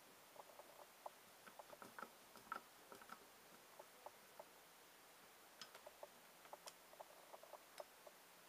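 Faint, irregular small clicks and ticks of a small screwdriver turning a mounting screw that fixes a power transistor to an aluminium heatsink.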